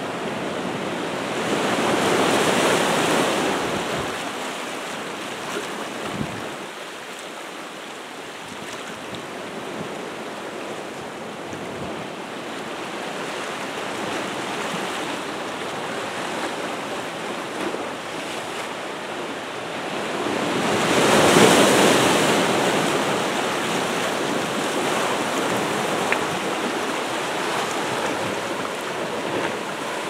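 Pacific Ocean surf washing through a rock arch and over the stones of a shallow cove: a steady rush of water with two louder surges, one about two seconds in and one about twenty-one seconds in.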